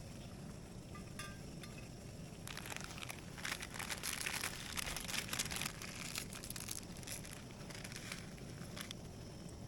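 Plastic food packaging crinkling and rustling as it is handled. The sound is busiest from about two and a half to six seconds in, then thins out.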